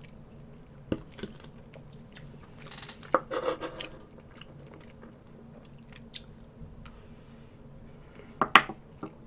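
A person chewing food close to the microphone, with scattered wet smacks and clicks and a couple of louder bursts about three seconds in and near the end.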